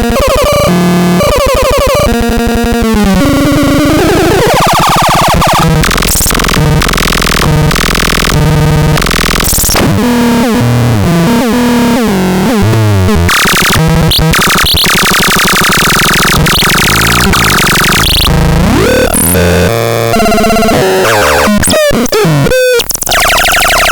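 Synthesizer sound demo: loud electronic tones that change every fraction of a second, with sliding pitch sweeps up and down, buzzy low notes and bursts of hiss, and no steady tune.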